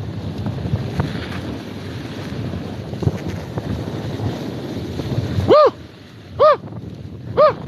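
Wind rushing over the microphone of a skier on a downhill run. From about five and a half seconds in, the rush drops and three short chirps sound about a second apart, each rising and falling in pitch.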